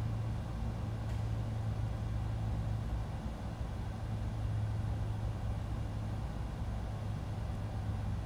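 Steady low hum under a faint even hiss, unchanging throughout.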